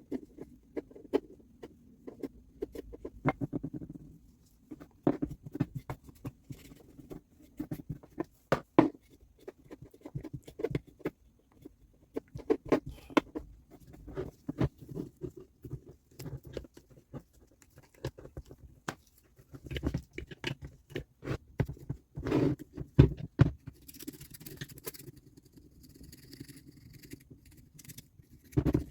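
Irregular small clicks, taps and scrapes of hand tools and metal parts being handled during work on a reciprocating saw, with a brief hiss about three-quarters of the way through.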